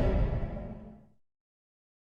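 The tail of a loud creature roar sound effect, fading away over about the first second and then cutting to dead silence.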